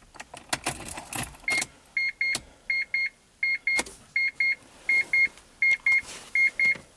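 Car keys jangling and clicking as they go into the ignition, then, from about a second and a half in, a high electronic beeper sounding in quick pairs, about one pair every 0.7 seconds, as the car's electrics are switched on.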